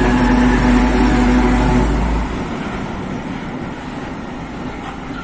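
Diesel engine of a PKP ST44 freight locomotive (two-stroke V12) running loud as it passes. About two seconds in the engine sound falls away as the locomotive moves off, leaving the rumble of loaded flat wagons rolling by.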